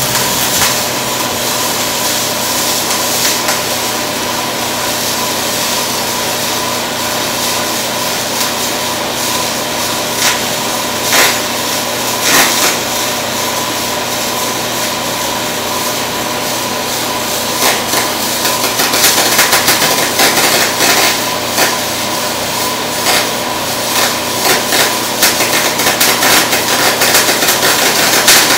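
MIG welding arc in spray transfer on steel plate, a steady hiss with scattered sharp crackles and pops that grow more frequent in the second half.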